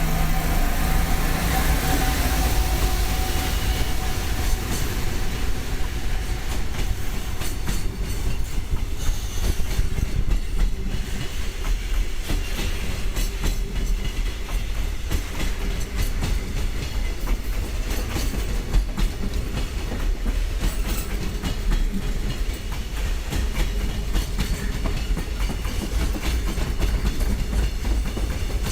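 Freight train pulling out, its wagons rolling past with the wheels clacking steadily over the rail joints.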